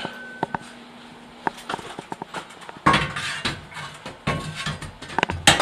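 A steel reinforcing piece being test-fitted into the floor framing: a few light clicks and knocks, then from about three seconds in a stretch of scraping and clunking as it is pushed in, catching for lack of clearance past the drywall.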